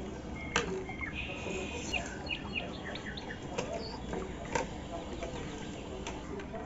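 Small birds chirping and trilling in the background. Several sharp clicks come from the plastic casing and circuit board of an opened electric mosquito racket being handled, the loudest about half a second in.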